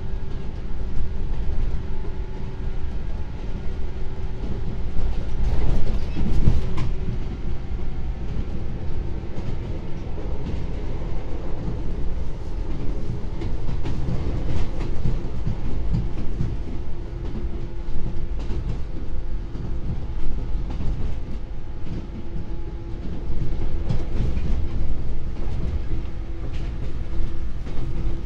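Running sound inside a JR 113 series electric motor car at speed: a steady rumble of the wheels on the track, with scattered rail-joint clacks. Under it runs a low hum from the MT54 traction motors and gearing, which fades about five seconds in and comes back strongly from about fourteen seconds.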